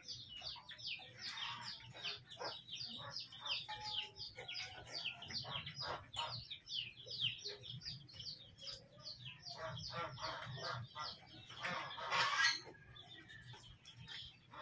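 Chickens calling in a continuous run of short, high, falling chirps, several a second, with one louder, harsher call about twelve seconds in.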